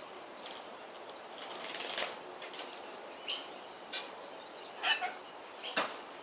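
Rainbow lorikeet bathing in a shallow tub of water: a flurry of wing flutters about two seconds in, then four or five short, sharp, high chirps and flaps.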